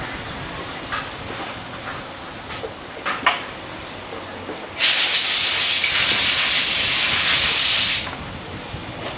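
A loud, steady hiss of gas escaping under pressure, starting about five seconds in and lasting about three seconds before it cuts off, with a few faint ticks earlier.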